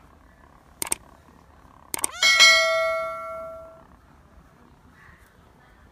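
Two light clicks, then a single bright metallic clang about two seconds in that rings and fades over about a second and a half.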